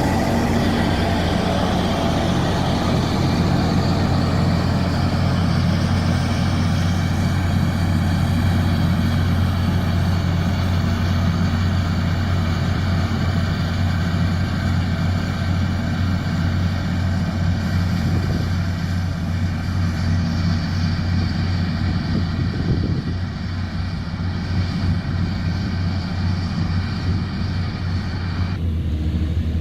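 Komatsu D41P bulldozer's diesel engine running with a steady low drone and a higher mechanical din over it; the higher sound drops away near the end.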